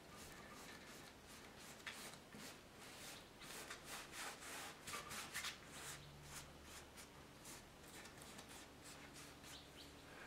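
Faint, scratchy strokes of a tool dragging and dabbing acrylic paint on canvas, coming thick and fast between about two and six seconds in.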